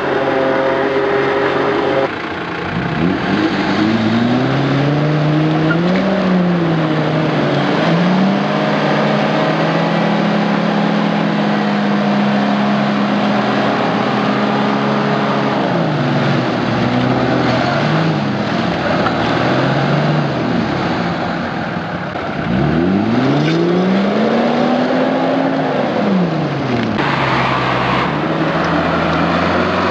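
Off-road 4x4 engines revving hard while driving through mud, the engine note rising and falling with the throttle. The sound changes abruptly a few times as one vehicle gives way to another.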